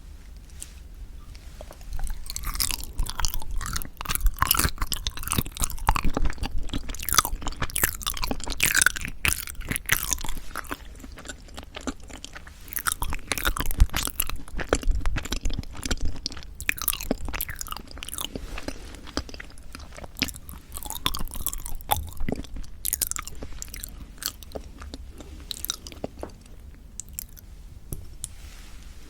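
Close-miked chewing and biting of yanggaeng (sweet red bean jelly), a dense run of mouth sounds starting about two seconds in and thinning out near the end.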